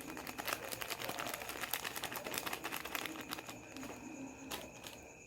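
Rapid, irregular clicking and crackling from a pot of rice and beans cooking, as seasoning goes in, thinning out after about three and a half seconds.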